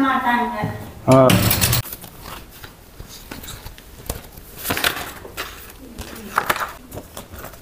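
A few words of speech in the first two seconds, then scattered light clicks and knocks of handling.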